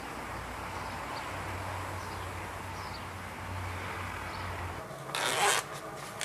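Faint steady background ambience, then about five seconds in a backpack zipper is pulled open in one quick zip, with another zip starting at the very end.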